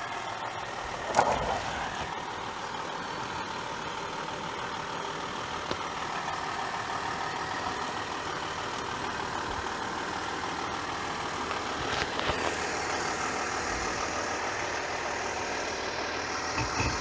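Volkswagen Touareg engine running steadily, with one sharp knock about a second in and a fainter click later on.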